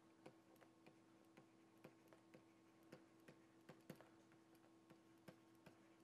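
Near silence with faint, irregular clicks and taps of a pen stylus writing on a tablet, about two a second, over a faint steady hum.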